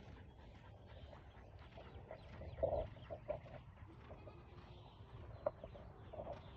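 Farm animal calls outdoors, the loudest about two and a half seconds in, over birds chirping.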